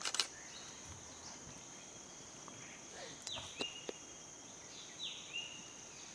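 Steady high-pitched insect drone, with two descending whistled bird calls about three and five seconds in. A loud sharp click comes at the very start, and a few fainter clicks follow in the middle.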